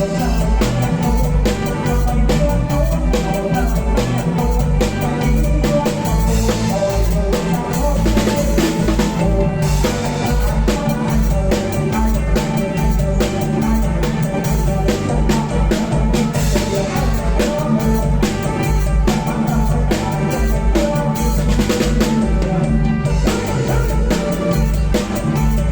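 Live kantrum band music driven by a drum kit, with a steady deep bass beat and regular snare and rim hits.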